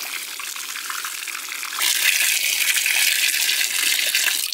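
Tap water pouring in a stream onto raw beef brains in a plastic tray, splashing as it rinses them. It gets louder about two seconds in, when the stream falls onto the tray set on the concrete floor, and cuts off suddenly near the end.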